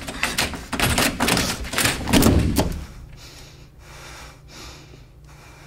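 A quick run of thumps and knocks, loudest in the first two and a half seconds, then it drops to a low steady hum.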